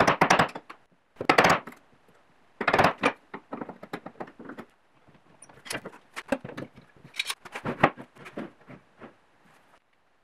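Clattering knocks and clicks of wood and metal hand tools and bar clamps being handled on a workbench: a few rattling clusters in the first three seconds, then lighter scattered clicks.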